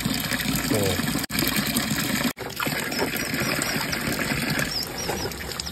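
Water running and splashing over a wet concrete slab, a steady rushing noise broken by a few abrupt cuts.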